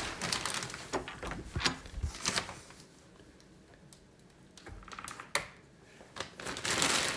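Scattered light clicks and knocks at irregular intervals, with a quieter stretch in the middle.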